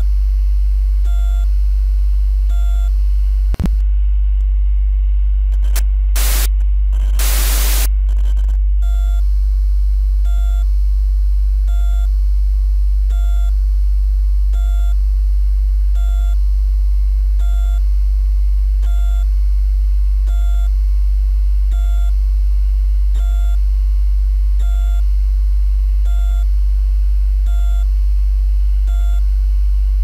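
Loud steady low electrical hum with a faint short beep about once a second, the drone of an emergency-alert broadcast screen between messages. A sharp click a few seconds in, then bursts of static hiss around six to eight seconds in.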